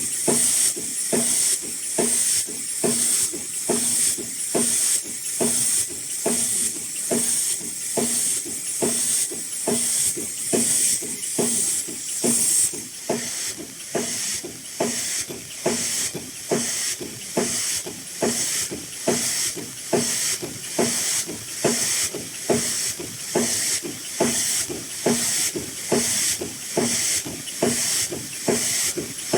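High-speed N95 mask production machine with in-line packing running: an even rhythmic clacking of about one and a half strokes a second over a steady high hiss, the hiss easing somewhat about halfway through.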